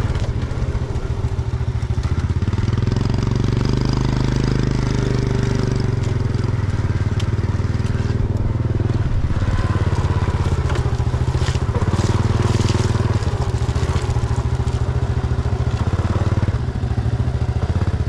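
Small step-through motorbike engine running steadily at low speed, with the tyres crunching and crackling over a rutted, muddy dirt track, most noticeably in the middle.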